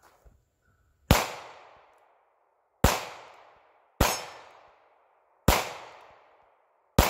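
Five shots from a North American Arms Pug mini revolver chambered in .22 Magnum (.22 WMR), fired one at a time one to two seconds apart. Each sharp report fades over most of a second.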